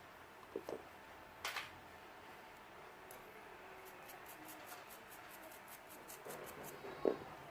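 Small hand tools on a workbench: a few light taps and knocks, with a quick run of faint high ticks in the middle.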